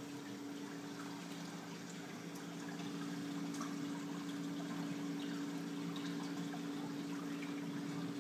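Saltwater aquarium's filtration running: water trickling and splashing steadily over a constant low hum.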